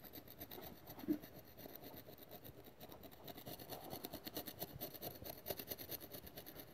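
A flat-blade screwdriver scraping coolant-corrosion deposits off the deck face of a Honda DOHC cylinder head. Faint, quick scratching strokes grow denser in the second half, with one brief louder scrape about a second in.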